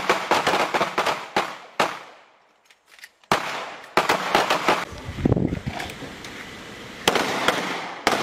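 Pistol fire from several shooters at once: quick strings of sharp, overlapping shots that echo. There is a gap of about a second roughly two seconds in, after which the firing resumes in bursts.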